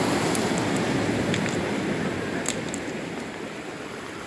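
Sea waves washing on the shore, a steady rush that slowly fades as a wave draws back, with a few faint high ticks.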